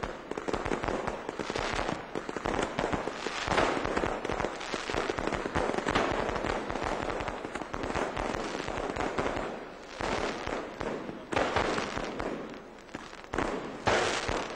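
Aerial fireworks display: a dense, continuous run of bangs and crackling. It eases off about ten seconds in, then a few louder bangs come near the end.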